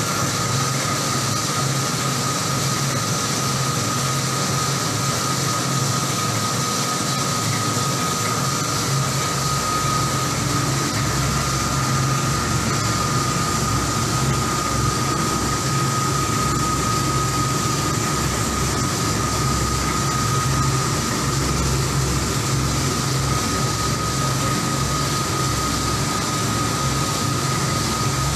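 Commercial drum coffee roaster running while the stirring arms in its cooling tray sweep roasted beans round: a steady mechanical whir and rushing hiss with a thin, steady whine over a low hum.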